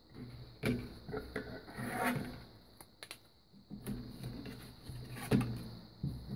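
Kraft cardboard pieces being handled and slid on a cutting mat, rubbing and scraping, with several sharp knocks as scissors and a plastic ruler are set down; the loudest knock comes about five seconds in.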